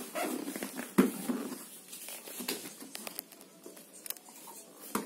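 Large cardboard boxes being handled on the floor, with small hands patting and slapping on the cardboard. There are a few soft knocks over a light rustle.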